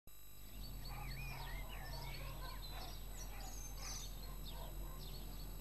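Birds chirping and whistling, many short calls overlapping, over a faint low steady hum.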